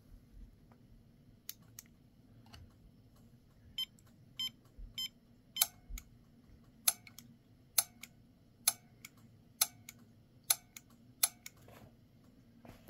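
Solenoids of a Honeywell water heater gas control valve clicking as 12-volt power is applied to their terminals with a power probe. Sharp single clicks come irregularly at first, then about one a second, with a few short electronic beeps a little before the middle. The clicks show the solenoids move and are not stuck.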